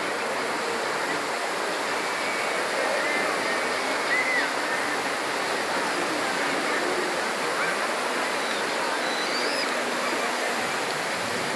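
Steady wash of sea surf on a beach, with faint distant voices of people.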